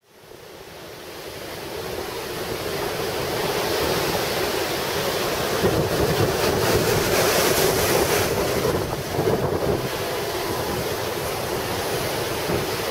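Ocean surf breaking and washing up a sandy beach, a steady rushing wash that fades in over the first few seconds, with wind buffeting the microphone.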